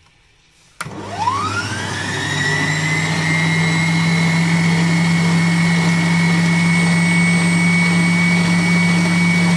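Electric stand mixer fitted with a dough hook switched on about a second in, its motor whine rising as it spins up to speed, then running steadily at full speed while mixing eggs, water and yeast in a steel bowl.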